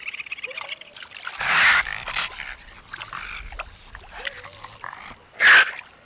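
Raccoon pawing in a water-filled glass fishbowl: water splashes and sloshes in short bursts, loudest about a second and a half in and again near the end, with a couple of short squeaky calls.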